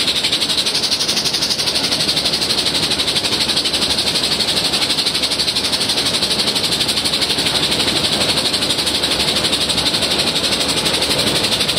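Mount Washington Cog Railway train heard from on board while it moves: a steady hiss over a rumble, pulsing quickly and evenly.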